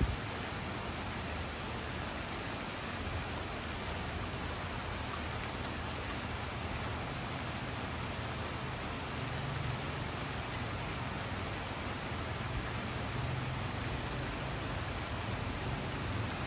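Steady rain falling on a street and tree leaves, an even hiss. A low rumble underneath grows stronger about halfway through.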